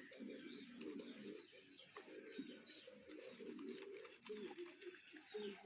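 A bird cooing faintly, a string of short, low, repeated calls.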